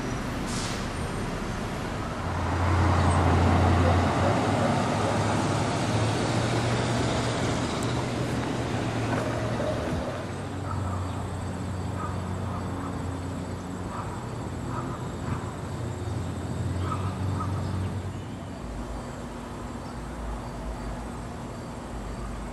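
Road traffic: a motor vehicle passes, loudest about three seconds in, over a steady low engine hum that eases off partway through.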